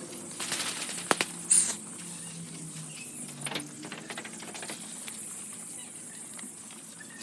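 Young broiler chicks in a brooder, with one loud high peep about a second and a half in, sharp clicks and light pattering of pecking and scratching, over a steady high hiss.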